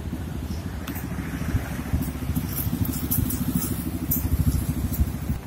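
Busy city road traffic, cars and motorbikes running close by, heard as a steady low rumble.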